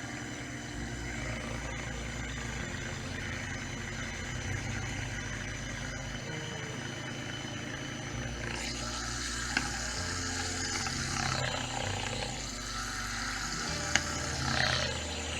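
Brushed 540 electric motor running submerged in water at low throttle for its break-in, with background music over it. A hiss of churning water rises from about halfway through, and there are two sharp clicks.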